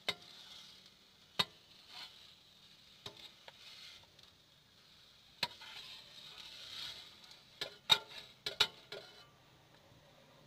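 Metal spatula knocking and scraping against a wok while battered lotus flower fries in shallow oil, with faint sizzling between the knocks. The clacks are scattered at first, then come in a quick cluster of the loudest strikes near the end.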